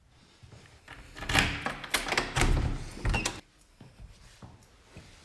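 Door clunks and rattling with a few sharp knocks, lasting about two and a half seconds from about a second in.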